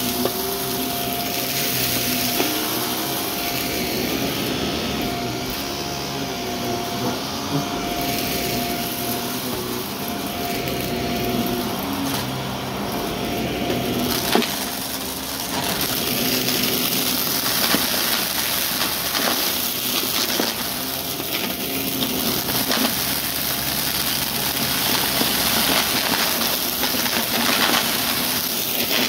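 Shark Navigator vacuum running with its brushroll spinning, crackling and crunching as it sucks up crunchy debris. A steady motor hum sits under a constant scatter of clicks.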